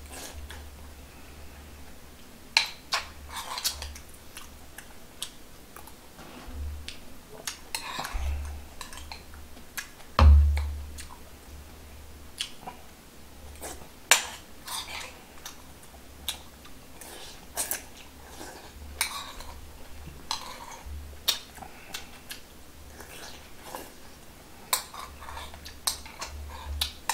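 Eating sounds: a metal spoon clinking and scraping in a black stone pot, with chewing between the spoonfuls. One heavier thump about ten seconds in is the loudest sound.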